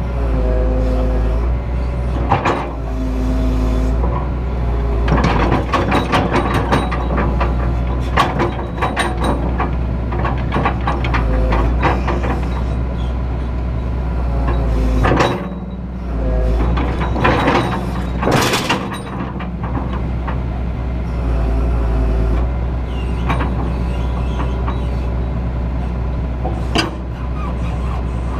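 Excavator engine running steadily under load, with repeated metallic clanks and rattles as the arm and bucket are worked.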